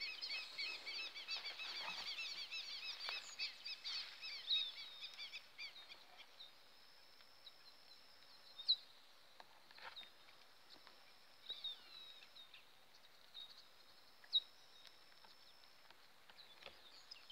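Wild birds chirping in a fast, dense high chorus for about the first five seconds. Then come three long, steady, high-pitched notes a few seconds apart, with two sharp ticks standing out.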